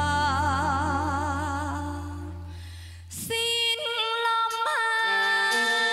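A woman singing a ballad into a microphone with band backing: she holds a long note with vibrato that fades away over about two seconds, then about three seconds in the music starts again and she comes back in on a new, held line with small upward slides in pitch.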